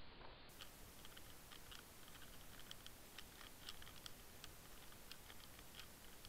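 Faint, irregular clicking and ticking picked up underwater, several sharp clicks a second over a low hiss, starting about half a second in.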